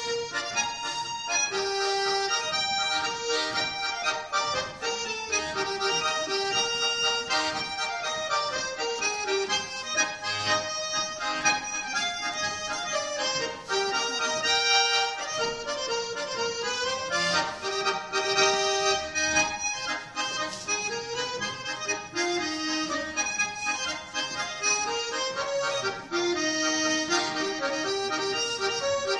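A small Swiss button accordion, a Schwyzerörgeli, playing a folk dance tune solo.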